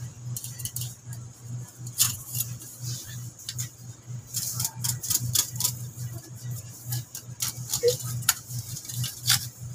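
Light, irregular clicks and taps of hand-tool work with a metal straightedge on a wooden floor frame, a few a second, over a steady low hum.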